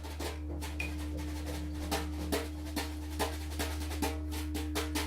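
A didgeridoo holds a steady low drone while a hand percussion instrument keeps a steady beat of about two and a half strikes a second.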